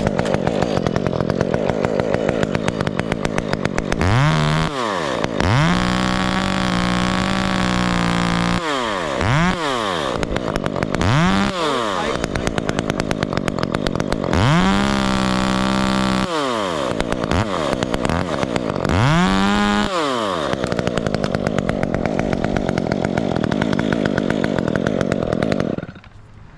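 Chainsaw running and being revved to full speed about six times, dropping back toward idle in between, then cut off near the end.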